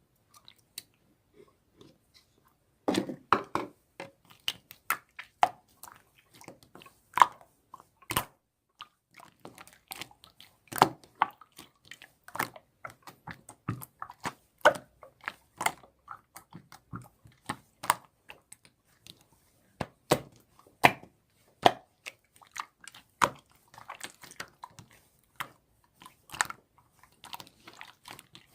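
Clear slime being squeezed and pressed by hand, making irregular sharp clicks and pops that start about three seconds in.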